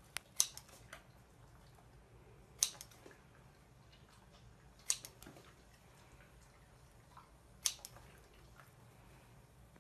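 Scissors snipping through a carrot: four crisp snips two to three seconds apart, with fainter clicks between.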